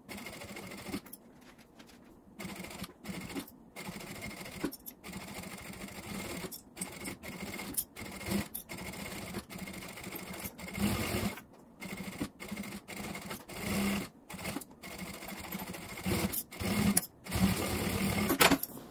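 JACK industrial straight-stitch sewing machine stitching down bias binding along a curved edge. It runs in short stretches, stopping and starting many times.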